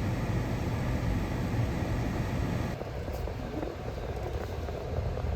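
Steady low rumble of a moving vehicle; it eases slightly about halfway and cuts off suddenly at the end.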